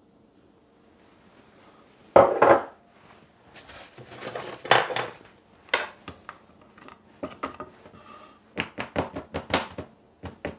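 Metal offset spatula scraping and clinking against a small saucepan and a plastic mould while tempered chocolate is spread, with a sharp clatter about two seconds in. Near the end, a quick run of knocks as the chocolate-filled mould is tapped on the wooden counter to bring up air bubbles.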